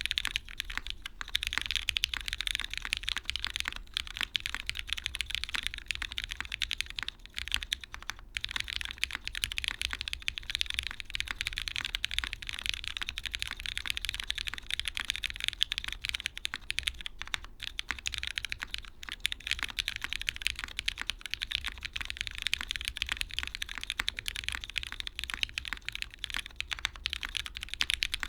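Continuous fast typing on a custom mechanical keyboard: a Singa PC Kohaku with lubed linear Cherry MX Black switches, 57g springs and switch films on an aluminum plate, gasket-mounted, with GMK doubleshot ABS keycaps. The keystrokes blend into a dense stream of clacks, with brief pauses about four and eight seconds in.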